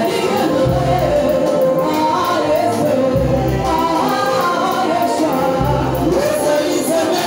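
Gospel choir singing a worship song in unison and harmony into microphones, over a live band with a steady drum beat and bass line.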